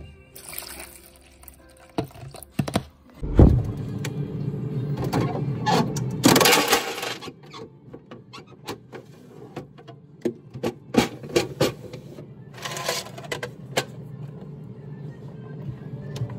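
Background music over kitchen handling noises: sharp clicks and knocks as a freezer drawer is opened and ice is taken out, with a heavy thump about three seconds in and two short stretches of scraping rustle.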